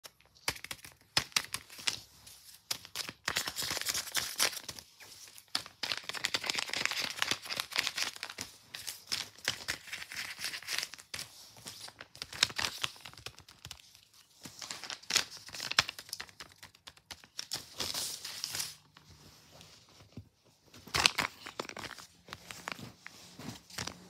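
Paper crinkling and rustling in repeated bursts with sharp crackles and some tearing, as homemade paper blind-bag envelopes are handled.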